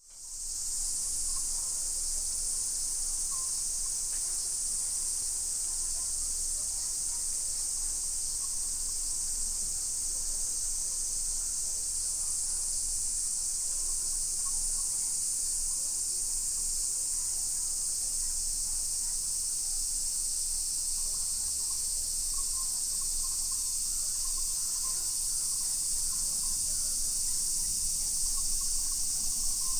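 A continuous high-pitched buzzing chorus of cicadas, steady throughout after fading in over the first second.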